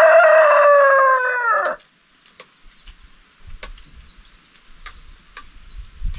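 Rooster crowing: one long, loud crow that ends with a falling pitch about two seconds in, followed by a few faint clicks.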